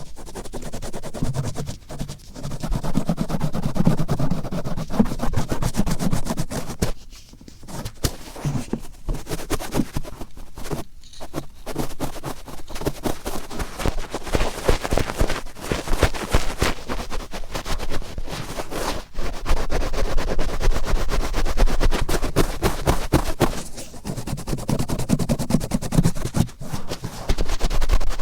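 Cotton swab rubbed and scraped firmly in the right ear for ASMR ear cleaning: dense, rapid scratchy rubbing, with a couple of short breaks.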